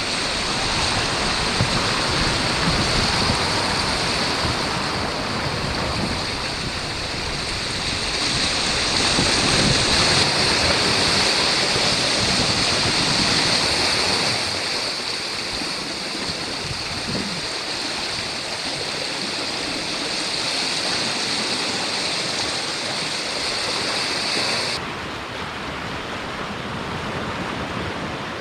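Sea waves washing against a rocky shore, a steady rushing noise with some wind. A high hiss drops out suddenly near the end.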